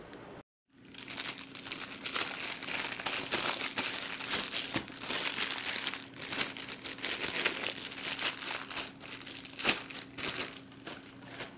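Clear plastic packaging bag crinkling and rustling continuously as it is handled and opened to pull an item out. A brief silent gap comes just under a second in before the crinkling starts.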